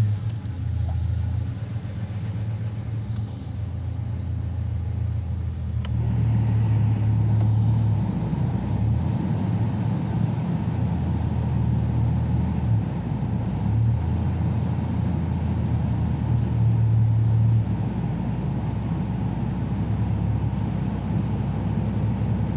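1991 Jeep Cherokee XJ engine idling steadily, with a low hum. About six seconds in, a steady rushing joins it as the heater and AC blower fan comes on.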